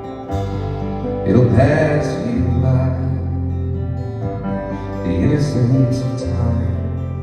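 Live band playing a slow country-style song: guitar over steady held bass notes, with a wavering melody line rising over it twice.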